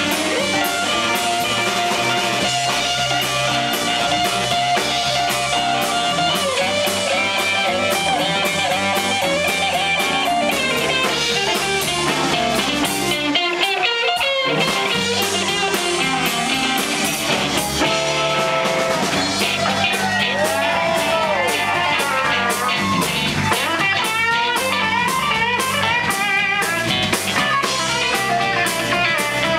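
Live electric blues band: an electric guitar plays a lead solo of sustained, bending notes over bass guitar and drum kit. The bass and drums drop out for about a second near the middle.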